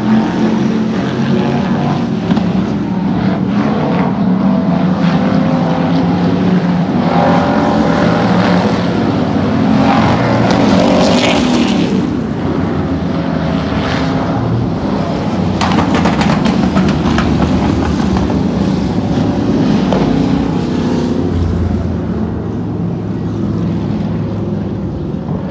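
Several hobby stock race cars' engines running as they circle a dirt oval, a steady mix of engines with the pitch rising and falling as cars go by.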